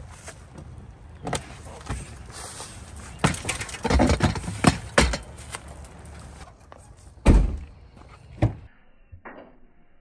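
Mountain bike being lifted out of an SUV's cargo area: irregular clanks, knocks and rattles of the frame and wheels, with one loud thump about seven seconds in.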